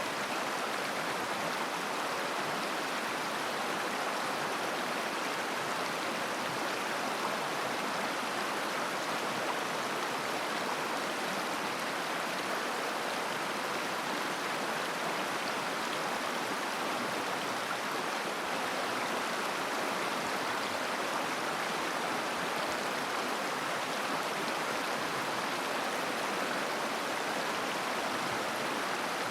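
Mountain river flowing over rocks: a steady rush of running water.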